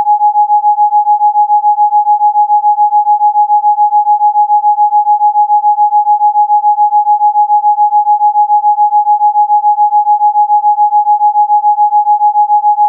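A single electronically generated pure tone, pitched a little below 1 kHz, held steady and pulsing rapidly in loudness. It is played as a Rife frequency meant for chicken pox relief.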